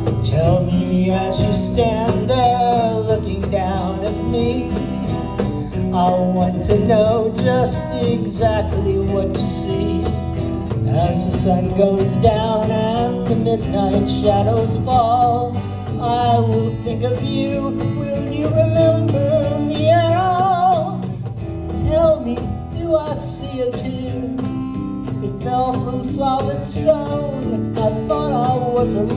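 Live band playing a song: a man sings the lead with vibrato over strummed acoustic guitar, electric guitar and a cajon keeping time.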